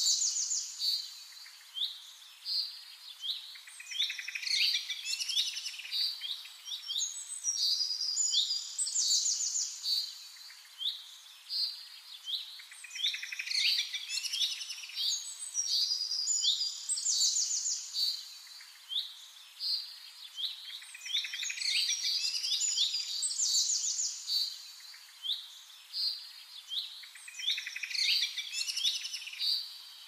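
Songbirds chirping and singing: high-pitched chirps, quick downward-sweeping notes and fast trills in short phrases, one following another every second or two.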